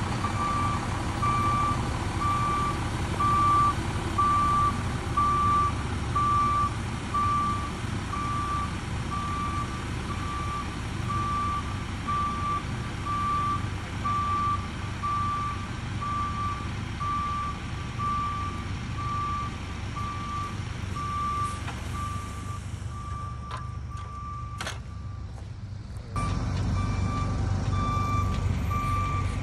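Dump truck's backup alarm beeping about once a second over its engine running, as the truck reverses laying stone chips from a tailgate chip spreader. The sound drops away for a few seconds near the end, then resumes louder.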